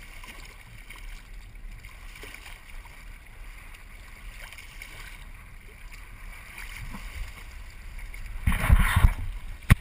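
Steady rush of water along a sailing kayak's hull, with wind on the microphone. Near the end there is a much louder burst of noise and low rumble lasting under a second, then a sharp knock.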